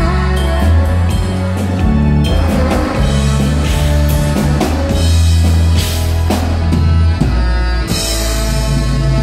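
Live band playing loudly: drum kit, bass, electric guitar and saxophone, with cymbals coming in strongly near the end.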